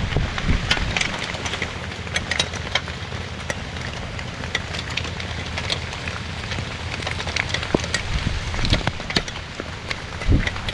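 Heavy rain falling, with many scattered sharp drop hits over a steady hiss and a low rumble.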